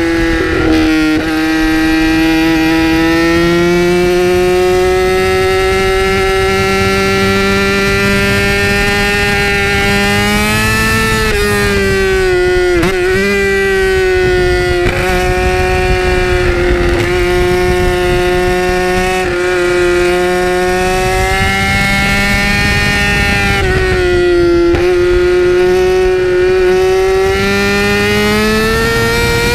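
2008 Yamaha R6's inline-four engine through an Akrapovic megaphone exhaust, held at high revs under way with a steady high-pitched note. The pitch slowly rises, dips briefly twice, at about twelve and twenty-four seconds in, and climbs again near the end.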